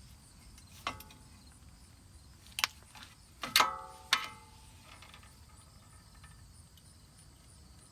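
A flathead screwdriver clinking against the brake caliper and pads while prying the caliper back: four sharp metal clicks in the first half, the loudest about three and a half seconds in, with a brief ring.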